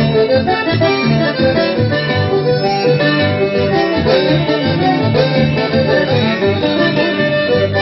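Accordion-led band music: an accordion plays a lively instrumental passage over a steady, regular pulse in the low notes.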